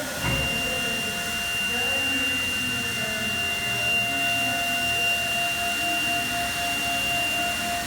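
Production-line machinery running steadily, with a high-pitched whine that sets in at the start and a lower steady tone joining about three seconds in, over a constant mechanical hum.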